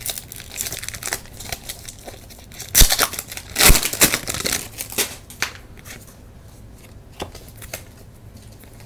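A 1996 Topps Finest basketball foil pack being torn open, its wrapper crinkling, with the loudest crackles about three and four seconds in. After about five seconds, fainter rustling as the cards are handled.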